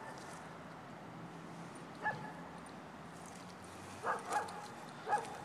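Short, high animal calls, five of them: one at the start, one about two seconds in, and three close together near the end.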